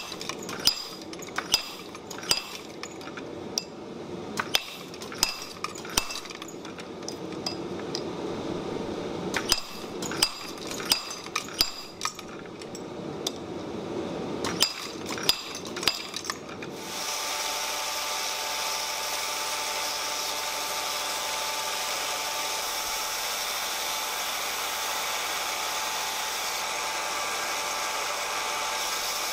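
Treadle hammer blows on a handled top tool held against a mokume gane billet on the anvil: a string of sharp metallic strikes with a clinking ring, irregular and about one to two a second. About 17 seconds in the blows stop, and a steady hiss with a faint even hum takes over.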